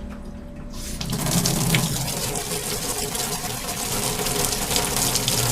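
Water running hard from a utility sink tap, starting strongly about a second in. Near the end a steady low hum sets in as the ejector pump switches on to empty its basin.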